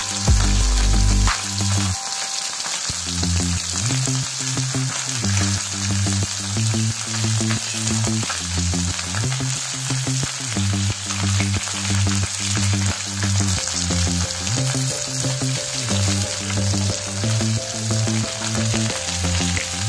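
Whole marinated fish frying in shallow oil on a flat iron tawa, a steady sizzle throughout as the pieces are turned over with metal tongs.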